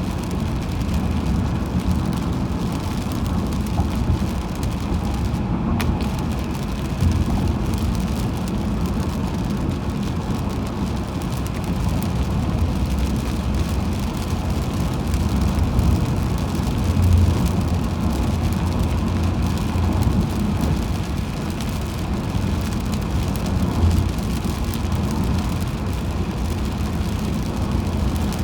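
Steady road noise of a car driving on a highway in the rain: a low tyre-and-engine rumble under a hiss of tyres and rain, with a few brief louder bumps.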